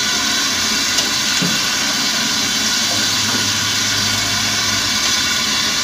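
Hot oil sizzling steadily in a large aluminium wok as pieces of flour-coated fried chicken deep-fry, being re-fried to make leftover chicken crisp again.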